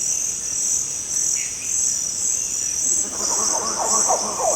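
Steady high insect chorus of tropical forest. About three seconds in, a group of monkeys starts calling over it, with many short cries that rise and fall in pitch.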